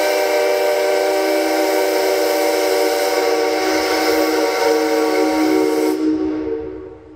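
Steam locomotive whistle mounted on a pillar beside D51 No. 2, sounding one long, loud, steady blast: several held tones over a rushing hiss. It cuts off about six seconds in and the sound dies away over about a second.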